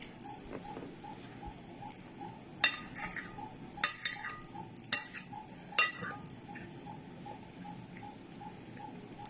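Spoon clinking against a plate while eating fried rice: four sharp clinks about a second apart, with short scrapes between them.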